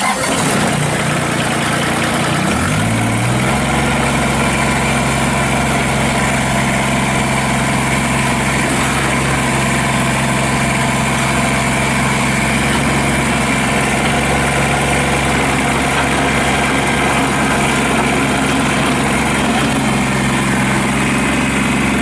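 Kubota BX25D subcompact tractor's three-cylinder diesel engine starting up. About three seconds in, its speed rises, and then it runs steadily at the higher speed.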